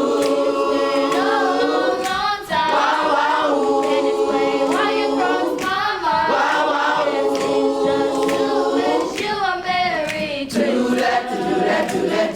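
Middle school chorus singing a cappella in sustained, held chords, in several phrases with short breaks between them.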